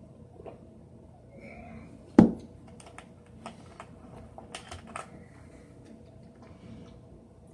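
Drink bottles being handled: one sharp knock about two seconds in, then a run of small light clicks and taps.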